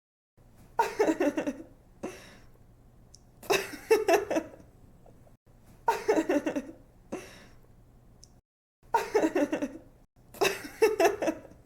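A young woman laughing in five separate bursts of quick, pulsing 'ha-ha-ha' giggles, each under a second long and a couple of seconds apart, with a faint low hum between them.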